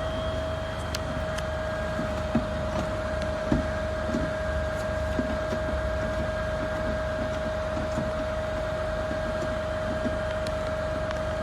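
A steady mechanical hum held on one constant pitch over a low rumble, with scattered light knocks and clicks.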